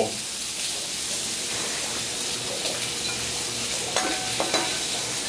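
Shrimp and garlic sizzling on a hot steel flat-top griddle, a steady frying hiss, while a metal spatula works across the cooking surface. A couple of brief clinks come about four seconds in.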